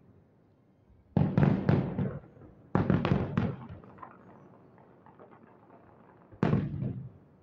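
Aerial fireworks exploding in the sky as sudden booms, each fading away. There is a quick run of about three about a second in, another run of about three near three seconds, and one more boom near the end.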